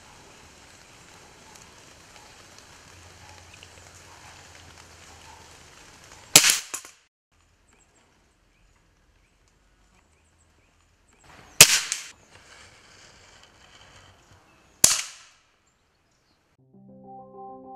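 Three sharp shots from a PCP air rifle, a few seconds apart, each a single crack with a brief tail. Background music comes in near the end.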